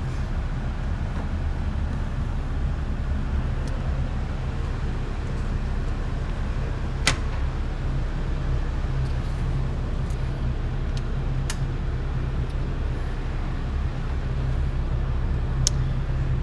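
Trailblazer SS's turbocharged 6.0 L LS2 V8 idling steadily on a hub dyno: an even low drone that does not rise or fall. A few sharp clicks sound over it, the strongest about seven seconds in.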